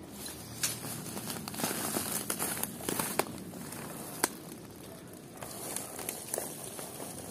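Leaves and twigs rustling and crackling close by, with scattered sharp clicks; the rustling is loudest in the first half, and one sharp snap comes a little after four seconds.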